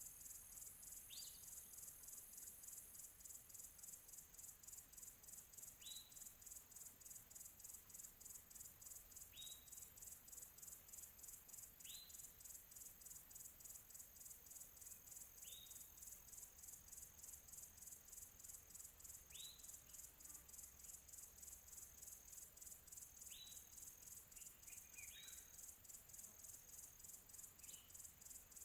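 Insects, crickets by their sound, chirring in a steady fast pulse, with a bird giving a single short high falling note every few seconds, about nine times.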